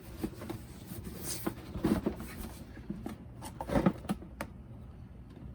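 Handling noises from a cardboard box being turned over in the hands: scattered rustles and light taps, with two louder knocks about two and four seconds in.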